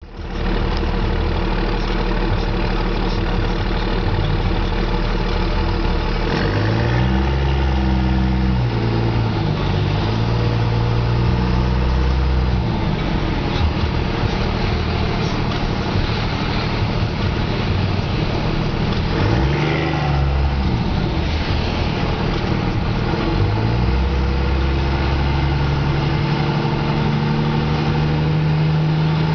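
Straight-piped 2001 Dodge Ram's Cummins 5.9-litre inline-six turbo diesel heard from inside the cab while driving, its revs climbing and dropping back several times as it pulls away and eases off.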